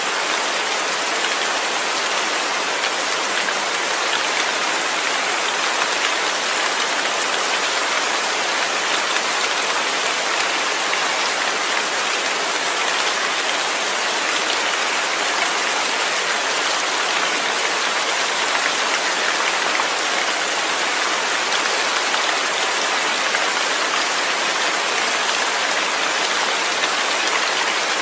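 Steady rain falling, a dense, even hiss of drops on a surface with no thunder.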